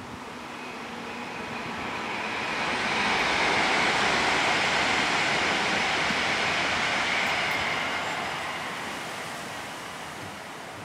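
A passing vehicle: an even rushing noise that swells to its loudest a few seconds in, holds, and fades away again.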